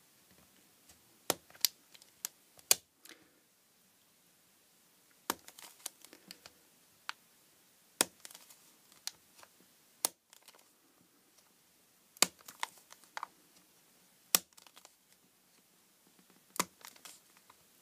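A knife blade cutting around the top of a plastic jug water-filter cartridge. There are irregular sharp cracks and clicks as the plastic gives way, with faint scraping between them.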